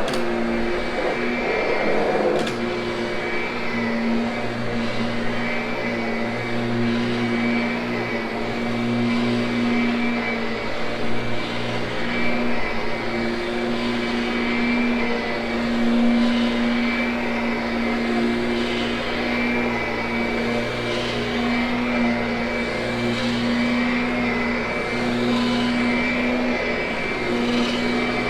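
Kirby upright vacuum running steadily while grooming carpet: a steady motor hum with a thin high whine above it, swelling and easing slightly over time. A short click about two seconds in, after which the hum settles.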